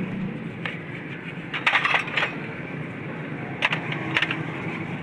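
Small metal parts or tools clinking and rattling against each other in two short flurries, over a low steady hum.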